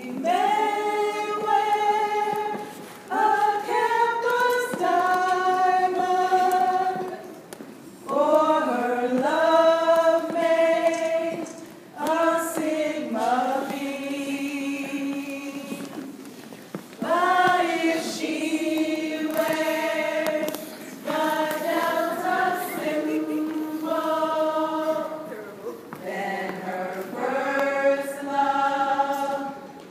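Female voices singing a slow song, unaccompanied, in long held notes grouped in phrases of a few seconds each with short breaks between.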